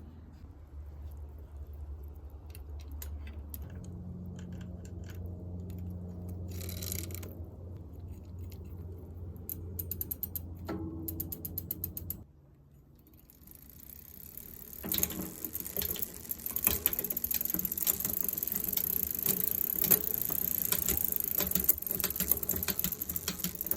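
Fast ratcheting mechanical clicks, dense and continuous from about fifteen seconds in. Before that there is a low hum with scattered clicks and a short dip to quiet.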